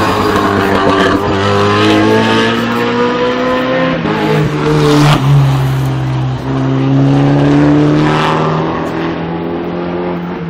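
GT race cars accelerating hard out of a corner one after another, the engine note climbing in pitch and dropping back at each upshift.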